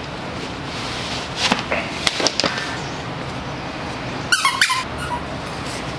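Rustling and light knocks of a knit running shoe, an Adidas Ultraboost Uncaged, being pulled onto a foot and adjusted, with a few soft taps around two seconds in. About four seconds in comes a short high-pitched squeal, over a steady hiss.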